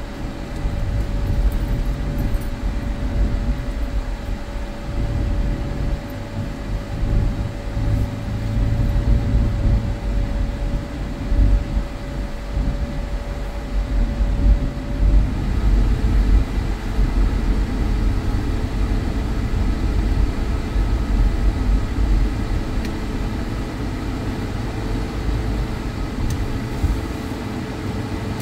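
Inside a car's cabin while driving slowly on snow-covered streets: a steady low rumble of engine and tyres, with a faint steady whine that steps down in pitch about halfway through.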